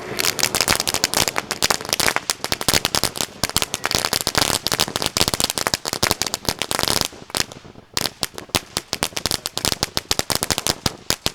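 Winda Neon Jelly Bean firework fountain crackling: a dense, rapid stream of sharp pops that thins out after about seven seconds into scattered single pops.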